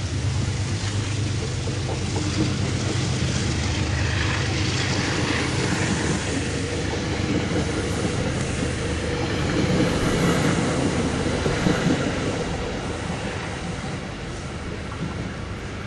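Passenger train passing at speed: a continuous rumble of wheels on the rails, loudest a little past halfway, then fading as the last car pulls away near the end.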